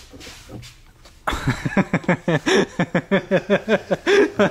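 A person's voice: after a quiet first second, quick unbroken talk or laughter starts and runs on.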